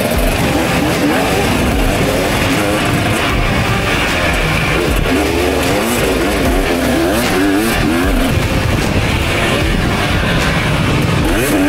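Motocross bike engines revving up and down again and again, with music underneath.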